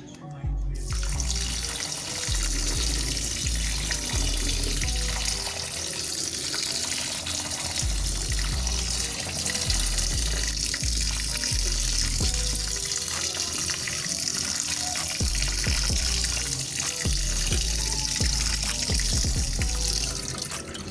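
Kitchen tap running into a stainless steel sink as rice is rinsed in a plastic colander, a steady hiss of water that starts about a second in and stops near the end. Background music with a bass line plays throughout.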